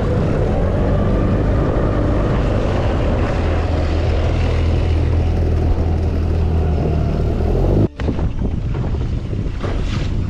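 Small boat's outboard motor running steadily under way, with wind and water noise. About eight seconds in the motor sound cuts off abruptly and gives way to gusty wind on the microphone and water around the hull.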